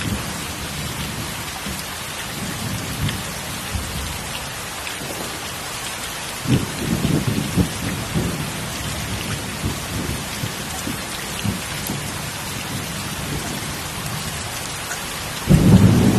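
Heavy, steady rain with rolling thunder: a low rumble swells about six and a half seconds in, and a louder one breaks near the end.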